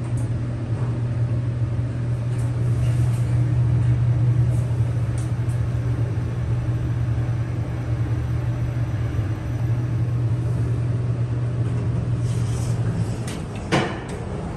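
Subway station elevator's machinery running with a steady low hum as the cab travels, cutting off about a second before the end. A single sharp click comes just after it stops.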